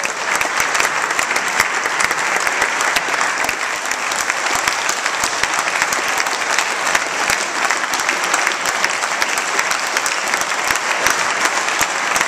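Applause from a large seated assembly of parliament members: dense, steady clapping of many hands that breaks out suddenly at the start.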